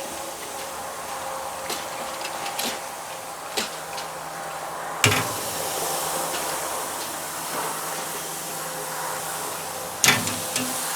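Skirt steaks sizzling on the grate over a very hot charcoal fire, a steady hiss, with light clicks and two sharp knocks, about five seconds in and near the end.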